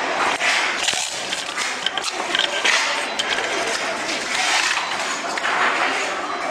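Adhesive tape pulled off the roll and wrapped around a transformer bobbin on a small winding fixture, a rasping, tearing noise that comes in repeated uneven surges, with a few small clicks of handling.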